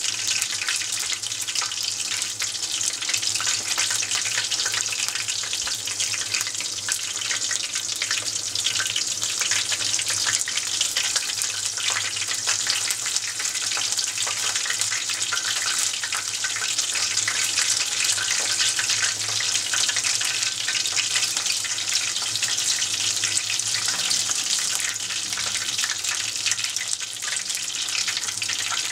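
Tempura deep-frying in a pot of hot oil: a steady, dense crackle and sizzle of oil bubbling around the battered pieces.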